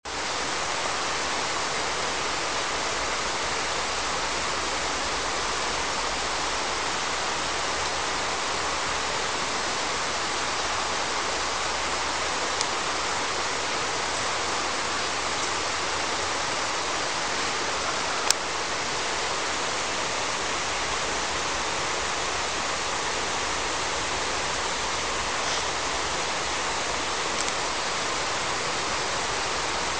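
Steady rush of flowing river water from the Tanaro. A single sharp click comes a little past halfway.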